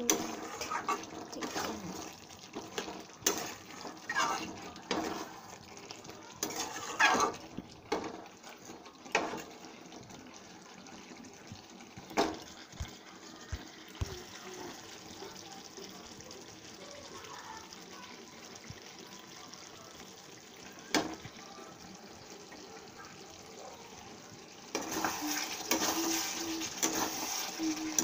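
Metal spatula scraping and knocking against a metal pan as chicken pieces in sauce are stirred, over a steady sizzle from the pan. The scrapes come thick and fast at first, then thin out to a few single knocks. The sizzle grows louder about three seconds before the end.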